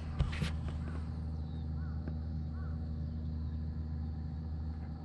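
A crow cawing twice, two short arched calls about half a second apart near the middle, over a steady low hum. A couple of light knocks sound just at the start.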